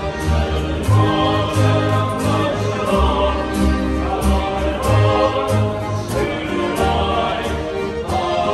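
Background music: singing voices over bass and a steady beat.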